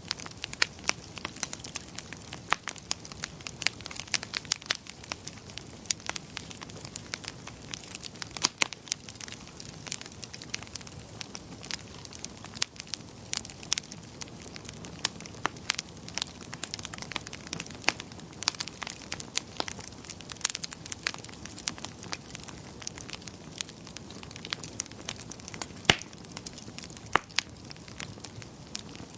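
Wood fire crackling in a fireplace: frequent sharp, irregular pops and snaps over a steady low hiss of burning.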